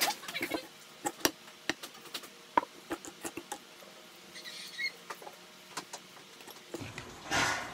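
Wire whisk tapping and scraping in a plastic mixing bowl as pancake batter is mixed, in irregular clicks a few times a second. A short rush of noise near the end.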